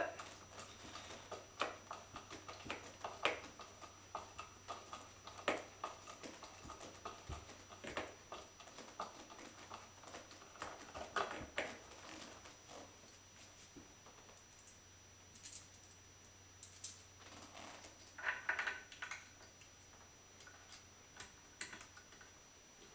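Hand screwdriver turning a wood screw and washer through a wooden heel rest into a spinning wheel's base: faint, irregular small clicks and ticks, with a denser patch of scraping a few seconds before the end.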